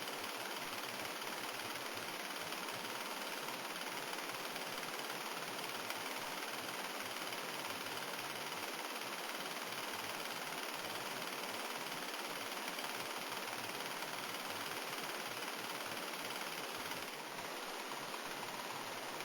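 Single-cylinder four-stroke model engine running steadily.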